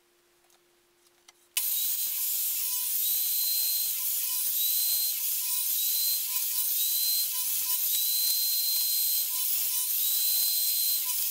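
Near silence, then about a second and a half in a table saw starts suddenly and runs steadily while it cuts strips of 35 mm MDF.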